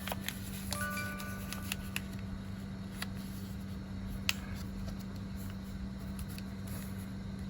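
Sheet of paper being handled and folded, with scattered crinkles and sharp creasing ticks, over a steady low hum. A few faint music notes sound about a second in.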